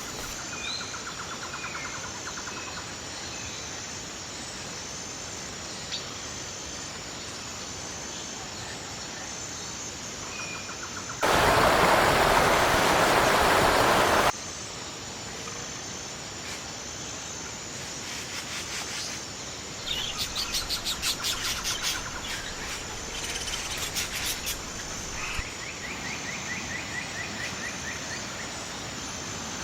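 Forest ambience: scattered bird chirps and trilled calls over a steady background, with a faint high chirp repeating at even spacing. About eleven seconds in, a loud hiss of noise starts abruptly and cuts off just as sharply some three seconds later.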